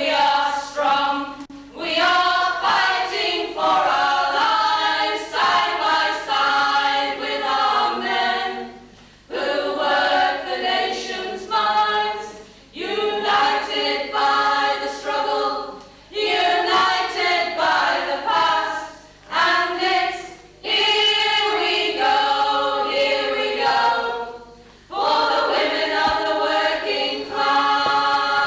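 A choir singing, in phrases a few seconds long with short breaks between them.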